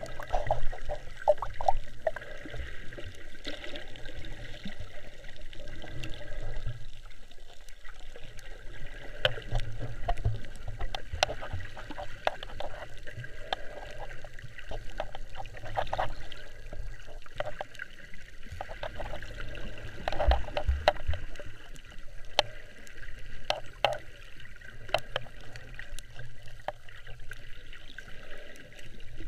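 Muffled underwater sound picked up by an action camera in its waterproof housing: water sloshing and bubbling, with uneven low rumbling surges and many scattered sharp clicks.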